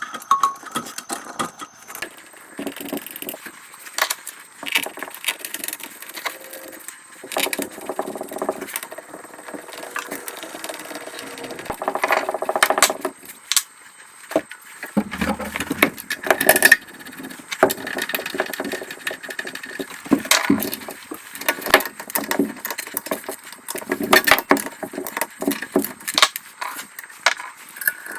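Hand tools and metal parts clinking, knocking and rattling irregularly while a compressor's cylinder head is worked on, without the compressor running.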